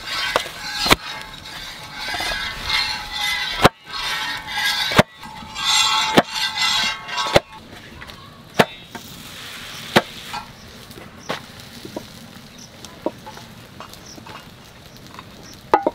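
Hands slapping and crushing freshly cooked petai paratha against a metal plate to break it into flaky layers, with sharp slaps about every second or so.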